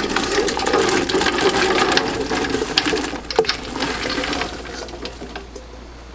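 Fresh green beans pouring from a bowl into a big stainless stockpot of hot vinegar brine: a dense rush of beans tumbling and splashing into the liquid, with a sharp knock a little after three seconds, tapering off after about four and a half seconds.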